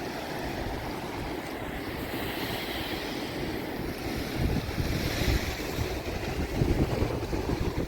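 Sea surf washing in, with wind buffeting the microphone; the low rumbling gusts grow stronger about halfway through.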